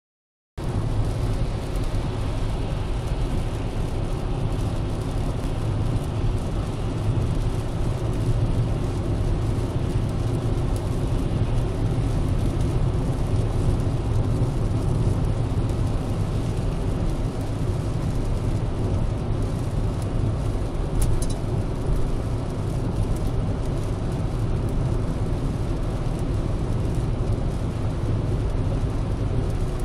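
Steady road noise inside a moving car on a wet motorway: a low rumble from engine and tyres with a fainter hiss above it.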